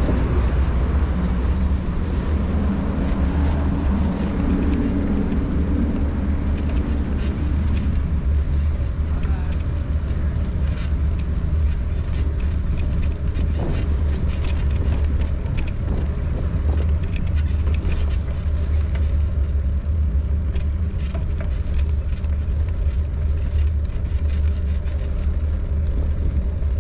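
Steady low rumble from a bicycle ride recorded on a handlebar-mounted camera: wind on the microphone and the bike's vibration as it rolls over paving, with frequent small clicks and rattles from the bumps.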